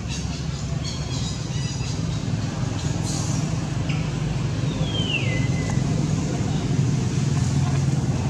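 Steady low background rumble of motor noise. About halfway through, one high call slides down in pitch.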